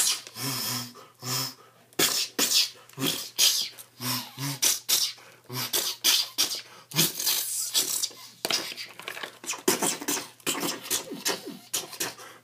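A person making rapid mouth sound effects for a toy fight: a string of short breathy hisses, pops and bursts, beatbox-like, standing in for blasters, lightsabers and impacts.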